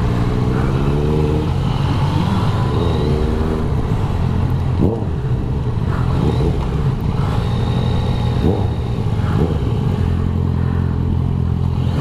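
Motorcycle engine heard from on board at low speed: its pitch rises twice in the first few seconds as the bike pulls away and accelerates, with a few short throttle blips after that, then it runs steadily near the end.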